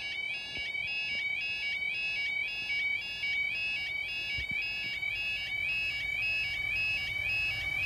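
Level crossing warning alarm sounding a continuous two-tone warble, repeating about three times a second.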